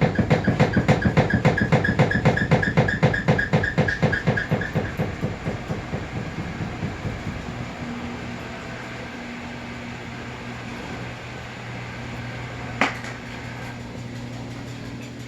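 Samsung washing machine banging: rapid, evenly spaced knocks at about five a second that fade out over the first six seconds, leaving a steady motor hum with a single sharp click about 13 seconds in.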